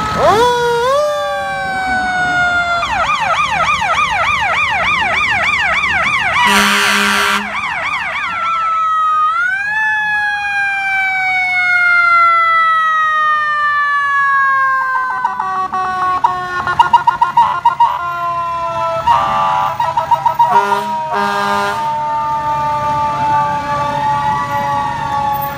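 Several fire trucks' sirens sounding at once: slow rising and falling wails overlap a fast yelp. Loud horn blasts come about a quarter of the way in and near the end, with a run of short horn toots in between.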